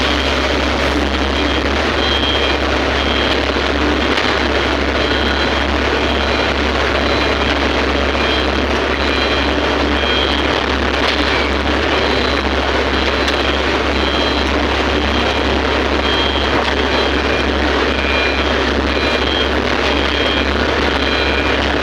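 Excavator's diesel engine running steadily, with faint short high-pitched tones coming and going over it.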